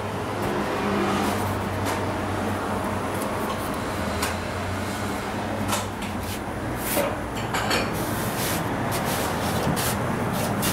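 Kitchen ambience: a steady low hum over background noise, with scattered light knocks and clicks.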